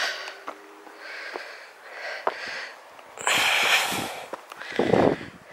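A hiker breathing while climbing a steep, rocky slope: several audible breaths, the longest and loudest a little past halfway, with a few faint footstep ticks on rock.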